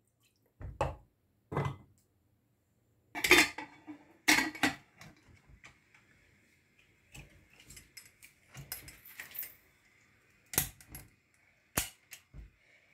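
Pressure cooker being handled: a wooden spatula knocking against the pot, then the lid set on and clicked shut at the handle, a dozen or so separate metal knocks and clinks, the loudest a little after 3 s and about 4.5 s in.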